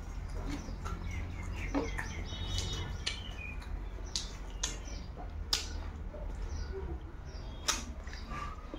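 Close-up eating sounds: chewing and lip smacks, heard as scattered short sharp clicks over a steady low hum, with faint bird chirps in the background.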